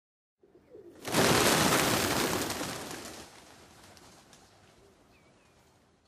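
Pigeons taking off: a sudden rush of wing flapping about a second in that fades away over the next few seconds, with faint bird chirps near the end.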